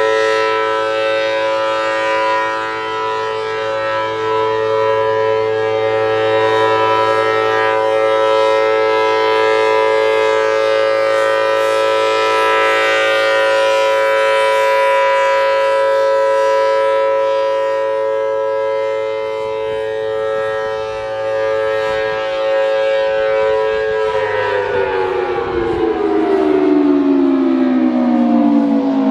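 Federal Signal Thunderbolt 1000T siren with a 4/5-port chopper sounding its steady Alert tone: a dual tone, two pitches a major interval apart. About 24 seconds in, the siren begins winding down and its pitch falls steadily, as the Alert signal ends.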